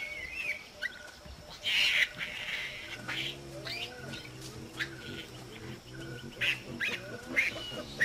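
Olive baboons calling: a young baboon's high-pitched squeals and chirps repeat throughout, each dropping in pitch, with one louder squeal near two seconds in. Lower pitched calls from the adults run from about three seconds to near the end.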